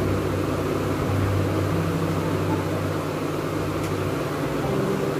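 Samsung Hot Blast microwave oven running, a steady mechanical hum of its fan and motor with a low drone.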